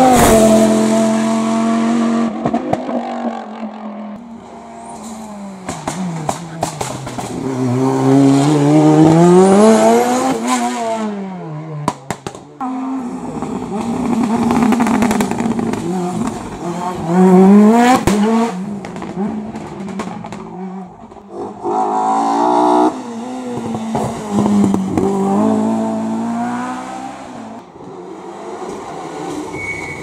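Several race cars going hard up a hill-climb course one after another, engines revving high and dropping in pitch through gear changes and braking as each passes close by.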